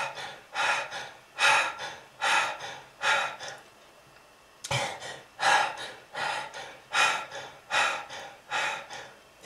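A person coughing hard and repeatedly in a fit, about one harsh cough a second, with a short pause near the middle: a smoker's cough.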